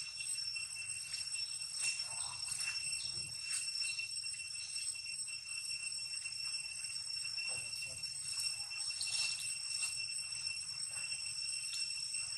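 Insects droning steadily at a high pitch, with scattered faint clicks and rustles.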